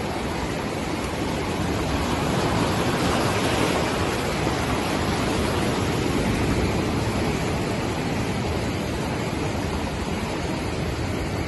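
Ocean surf washing and breaking over a rock ledge: a steady, loud rush of white water with no letup.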